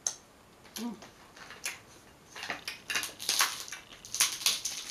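Close-up eating sounds: a wet finger-licking smack at the start and a short hum about a second in, then a run of crackling snaps and rasps as crab leg shells are broken apart by hand, busiest near the end.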